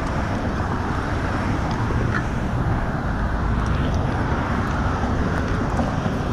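Steady wind rumble on a GoPro action camera's microphone outdoors, an even low noise that holds level throughout, with a few faint ticks.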